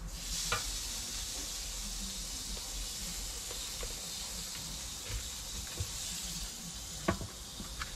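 Meat sizzling on a hot gas grill grate as it is laid down. The steady sizzle starts suddenly at the outset, with a couple of sharp knocks, one just after it starts and one about seven seconds in.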